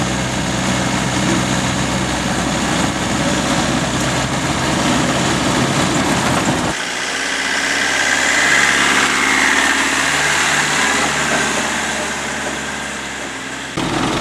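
Land Rover engine running steadily, heard from inside the cab while driving on an unpaved forest track. About seven seconds in the sound switches abruptly to a Land Rover heard from outside as it drives toward and past on the dirt road, engine and tyre noise swelling then slowly fading. Near the end it cuts back to the in-cab engine sound.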